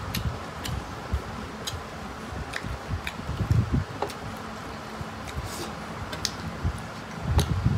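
Hand-eating sounds: chewing and small mouth clicks, with fingers mixing rice against metal plates, giving scattered light clicks and a couple of low thumps, over a steady faint hum.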